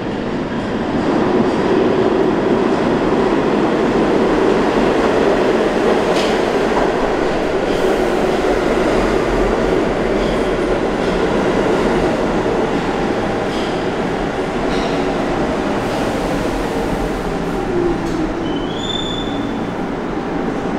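A New York City subway train rolls into an underground station and slows alongside the platform: a loud, steady rumble of steel wheels on rail, with a whine falling in pitch as it slows. A brief high squeal comes near the end.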